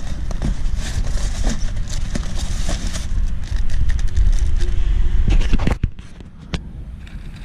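Corrugated cardboard scraping and plastic wrap crinkling as hands pull a packing insert out of a box and handle a plastic-wrapped seat, with many short crackles. A loud low rumble under it cuts off suddenly about six seconds in.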